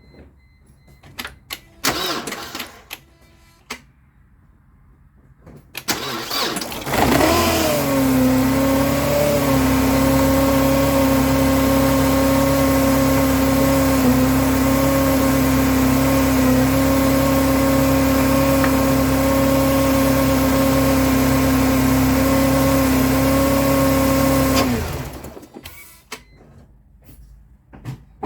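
2002 Mercedes C230's supercharged engine cranking and catching about six seconds in, its speed flaring up then settling into a steady idle with a steady whine. It is running on a newly fitted serpentine belt and idler pulley, and it is shut off abruptly near the end. Before the start there are a few knocks and clicks.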